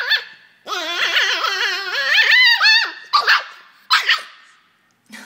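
Poodle giving a long, high-pitched snarling yowl whose pitch keeps wavering up and down, then two short rough barks a little past halfway before falling quiet.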